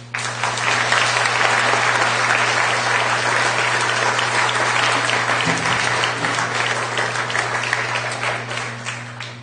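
Audience applauding, starting all at once and dying away near the end.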